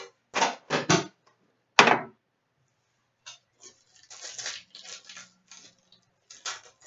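Foil hockey card pack wrappers crinkling and rustling as packs are handled, with sharp rustles in the first two seconds and a pack being torn open near the end.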